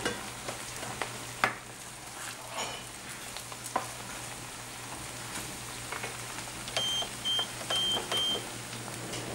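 A spoon knocking and scraping against an enamelled cast-iron pan as risotto is stirred, over the soft sizzle of the simmering rice and a steady low hum. Near the end, a high electronic beep sounds four times in quick succession.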